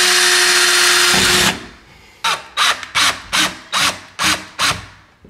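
Black+Decker 20V cordless drill driving a screw into a blind's hold-down bracket. The motor runs steadily and stops about a second and a half in, then comes seven short trigger bursts as the screw is snugged down.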